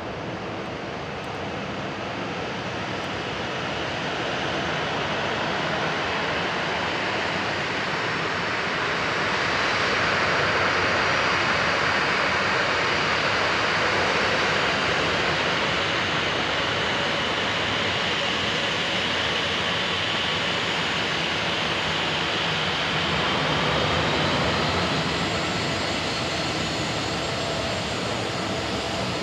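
Boeing 737-800's twin CFM56-7B turbofan engines at take-off power: a steady jet noise that swells to its loudest about ten seconds in, then slowly eases off as the airliner moves away.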